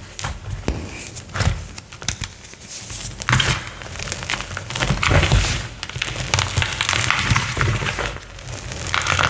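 Chalk being crushed and crumbled, an uneven run of crunches and crackles with sharp snaps and low thumps, thickest about three seconds in and again from about five seconds on.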